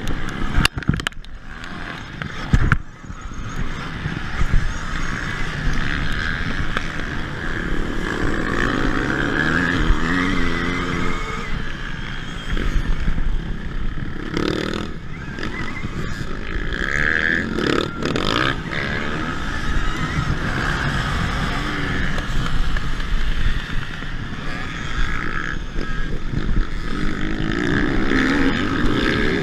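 Conventional dirt bike engines revving up and down close by, over the steady high whine of a KTM Freeride-E electric dirt bike's motor. A few sharp knocks sound in the first few seconds.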